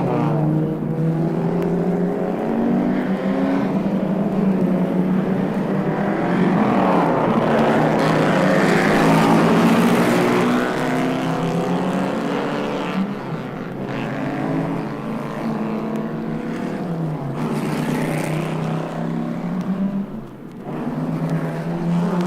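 Recorded engine sound effect: a motor vehicle running at speed, its pitch rising and falling several times as it revs and passes.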